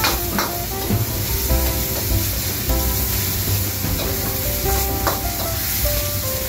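Chicken and prawns sizzling in a hot wok over a gas flame while a metal ladle stirs them, with a few sharp clanks of the ladle against the wok.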